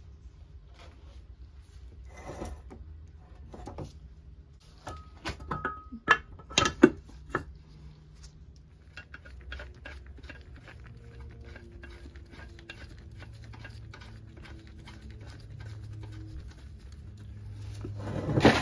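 Aluminium tail housing being fitted onto a T5 transmission case by hand: metal-on-metal knocks and clatter as it is set in place, a few sharp louder knocks about six to seven seconds in, then a long run of quick light clicks as the bolts are run in, and a louder clatter near the end.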